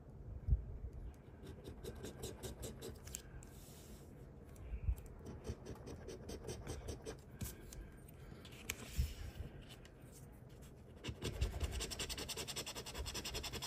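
A metal coin scratching the coating off a lottery scratch-off ticket in quick repeated strokes, growing faster and louder near the end.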